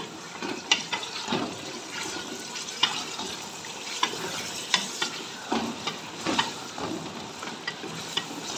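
Mutton pieces frying and sizzling in hot oil with onions in a pressure cooker, a steady hiss. A wooden spatula stirring the meat gives irregular scrapes and knocks against the pot.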